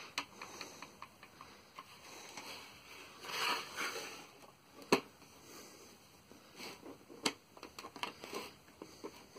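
The plastic case of a Ryobi 130-piece drilling and driving bit kit being folded shut and handled: scattered light clicks and rattles of plastic and metal bits, with a sharper snap about five seconds in and another a couple of seconds later.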